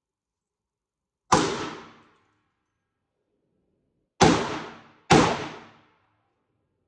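Three gunshots, each ringing out for most of a second: one, then about three seconds later two more fired less than a second apart.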